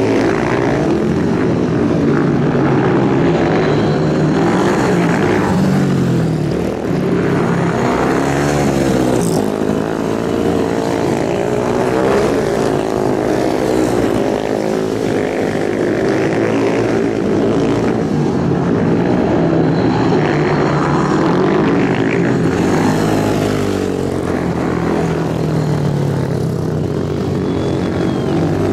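Dirt-track racing motorcycles running hard around an oval, several engines heard at once. Their pitch rises and falls over and over as the riders open the throttle and ease off for the turns.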